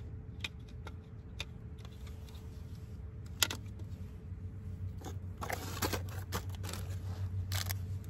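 Handling noises from unpacking car speakers: scattered clicks and knocks as a speaker and its cardboard box are moved, with a rustle of plastic wrapping about five to six seconds in. A steady low hum runs underneath.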